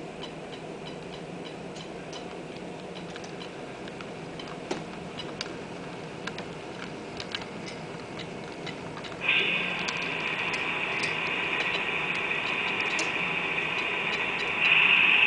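HO scale model train rolling past, its metal wheels clicking irregularly over rail joints over a low steady hum. About nine seconds in a steady high hissing whine starts suddenly, and it grows louder near the end.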